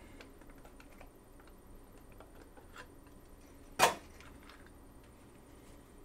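Hands handling trading cards and a clear plastic card holder: faint small clicks and taps, with one sharp click about four seconds in.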